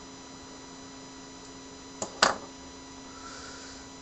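Steady electrical mains hum with two sharp clicks in quick succession about two seconds in, the second louder, followed by a faint brief hiss.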